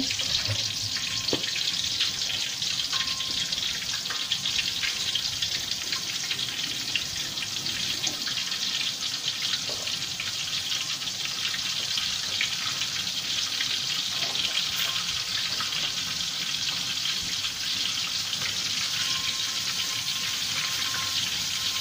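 Egg-and-flour-battered dory fish fillets deep-frying in hot oil in a wok: a steady sizzle with fine crackling.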